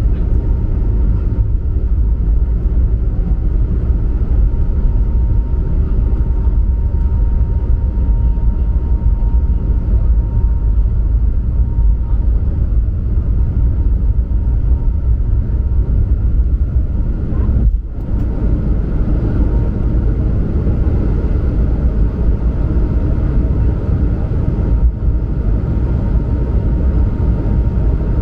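Airbus A220-100's Pratt & Whitney PW1500G geared turbofans at takeoff power, heard from inside the cabin: a loud, steady rumble with a faint high whine over it in the first half. The level dips briefly about two-thirds of the way through.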